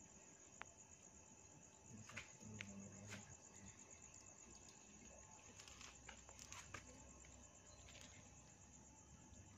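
Faint, steady chirring of crickets at night, one high even trill, with a few soft rustles and clicks of hands searching through grass.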